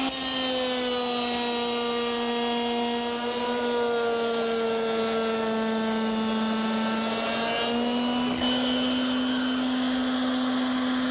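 Table-mounted router spinning a rail-and-stile bit, running with a steady high whine. Through the middle the pitch sags slightly as the stock is fed through the bit, cutting the groove and quarter-round profile in one pass, then it comes back up as the cut ends.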